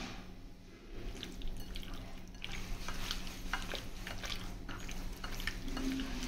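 A hand squishing raw chicken pieces through a yogurt, ginger-garlic and turmeric marinade in a bowl: irregular wet squelches and small clicks, starting about a second in.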